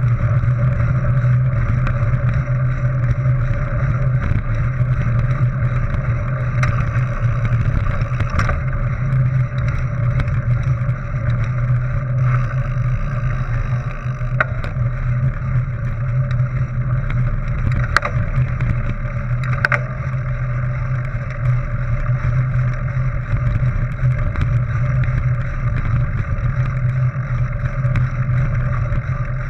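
Mountain bike rolling over a dirt-and-gravel track: a steady low rumble of tyres and wind, with a few sharp clicks and rattles from the bike going over bumps.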